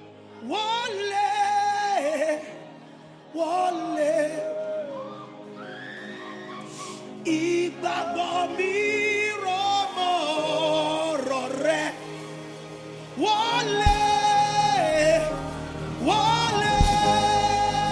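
Worship singing: one voice sings slow phrases of long held notes over soft sustained instrumental chords.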